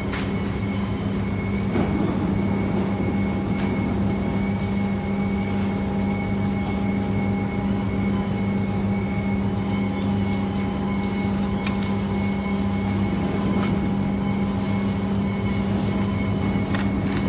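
Industrial machinery running steadily: a loud, unbroken drone with a strong low hum and several steady higher tones, and a few light clicks and knocks here and there.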